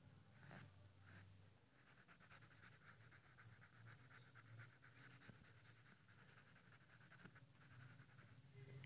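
Faint scratching of a graphite pencil shading on paper, a long run of quick back-and-forth strokes darkening a drawn bird's wing, over a low steady hum.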